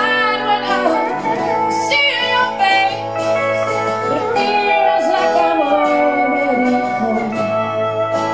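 A woman singing a slow song live, holding long notes and sliding between pitches, over guitar accompaniment.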